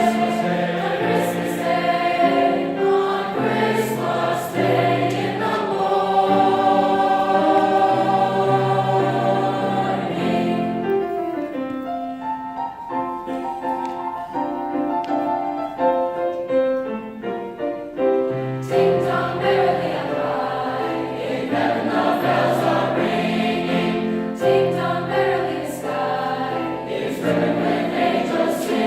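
High school choir singing a holiday piece in several parts with long, sustained chords. The sound thins to fewer, quieter voices about midway, then returns to full choir a little past halfway through.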